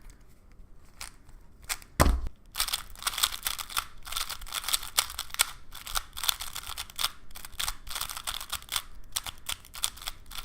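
Plastic speed cube being turned rapidly, its layers clicking and clacking in quick runs, after a single low knock about two seconds in.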